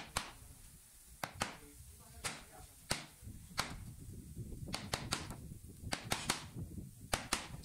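Wood chisel chopping into an MDF board, a sharp crack with each stroke, about fourteen strokes at an uneven pace, often two in quick succession.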